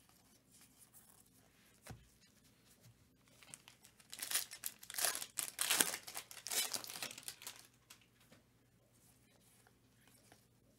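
Foil wrapper of a trading-card pack being torn open and crinkled by gloved hands: a few seconds of crackly tearing in the middle, after a single soft knock about two seconds in.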